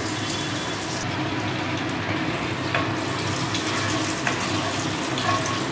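Oil and butter sizzling steadily in a hot pan, with a couple of faint clicks.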